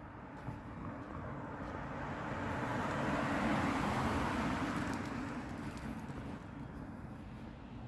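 A road vehicle driving past, its noise swelling and then fading, loudest about halfway through.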